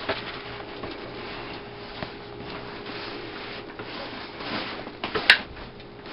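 Inglesina Avio stroller being unfolded: its folding frame and fabric seat rustle and creak, with a few light clicks and one sharp, loud click a little over five seconds in, over a faint steady hum.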